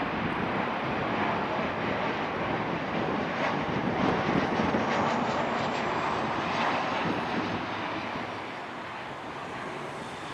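Boeing 737-800 jet airliner's two CFM56-7B turbofan engines at approach power as it passes on final approach: a steady roar, loudest about four seconds in and fading over the last few seconds, with a faint high whine that falls in pitch as the jet goes by.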